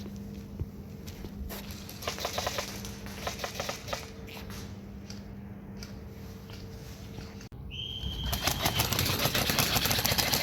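Airsoft guns firing in short bursts of rapid clicks, then a denser, louder rattle of fire after an abrupt cut near the end, over a low steady hum.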